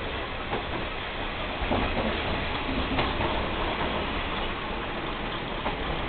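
Running noise inside the cabin of a KiHa 22-type diesel railcar under way: its DMH17C diesel engine and the wheels on the rails make a steady noise, with a few light clicks over rail joints. The noise grows louder a little under two seconds in.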